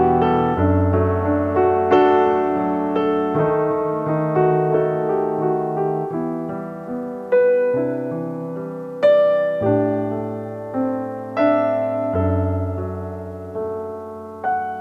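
Background piano music: a slow melody of struck notes, each fading away, over held low bass notes.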